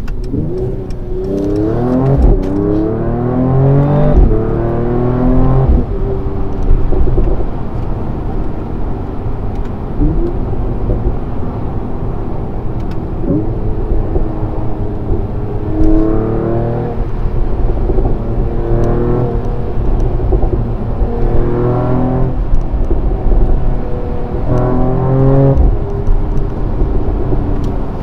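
Mercedes-AMG E53's 3.0-litre turbocharged inline-six with EQ Boost, heard from inside the cabin, accelerating through the gears. The engine note climbs in pitch and drops at each upshift, several times over, with steady road rumble underneath.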